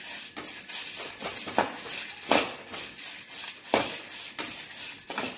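Metal ladle scraping and clinking against a metal kadai in irregular strokes, stirring whole spices and dried red chillies that are being dry-roasted without oil.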